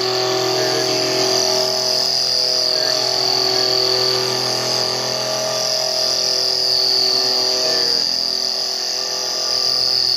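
Lathe cutting tool chattering against a spinning aluminium ring blank as it is slowly fed in: a loud, steady high-pitched squeal over several lower tones, which fade about eight seconds in.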